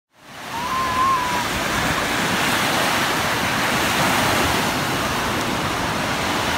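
Small waves breaking and washing up onto a sandy beach, a steady surf hiss that fades in at the start.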